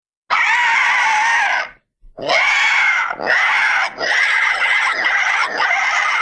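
Hanna-Barbera-style cartoon monster sound effect: a shrill, screeching roar of about a second and a half, then after a short break a longer screech of about four seconds with a few brief dips.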